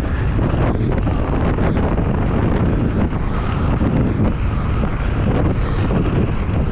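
Wind rushing over a GoPro's microphone as a mountain bike descends a dirt trail, mixed with the rumble of the tyres on the ground and a few knocks from bumps.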